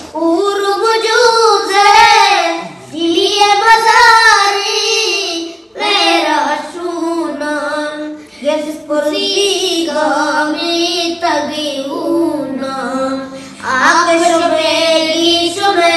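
A high voice singing a slow melody in phrases of a few seconds, its long notes wavering, with short breaths between phrases.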